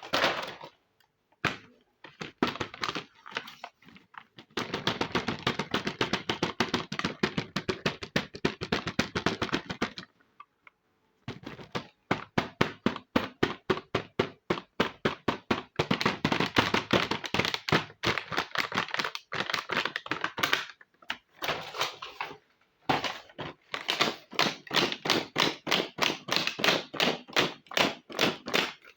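Small plastic toy kitchen pieces being handled, clicking and tapping against each other in rapid runs of several clicks a second, with a few short pauses.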